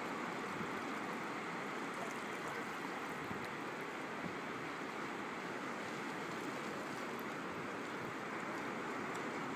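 Shallow water washing steadily over a sandy bottom, an even rush of moving water with no distinct wave breaks.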